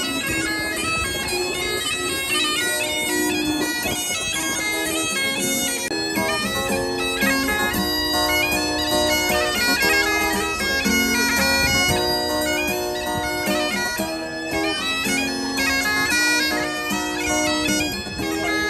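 Bagpipes playing a tune, with quick note changes and ornaments over the whole stretch.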